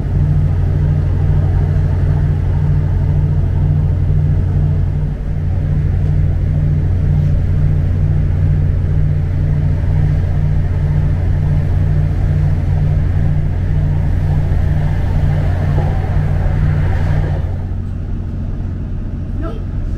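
British Rail Class 769 train running, heard from inside the carriage: a steady low hum with a throb about twice a second. Both ease off about three seconds before the end.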